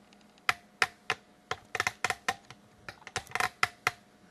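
An irregular run of about fifteen sharp clicks and taps, as of small hard objects being handled.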